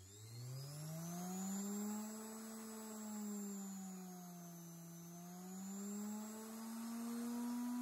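Washing machine universal motor, fed through a triac (SCR) speed controller, spinning up from rest with a whine that rises in pitch over about two seconds, then dips and rises again as the controller's knob is turned.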